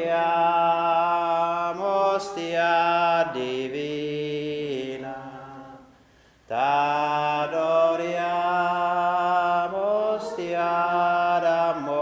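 A slow devotional hymn sung in long held notes, in two phrases with a short break about six seconds in.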